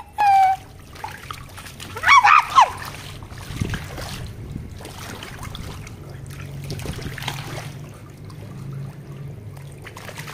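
Water spraying and splashing on an inflatable splash-pad sprinkler mat as a dog steps about in it. There are short high squeals right at the start and again about two seconds in.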